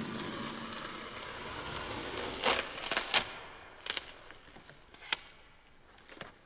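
Masking tape being peeled off paper: a steady tearing hiss for the first couple of seconds, then a scatter of sharp clicks and snaps as the tape comes free.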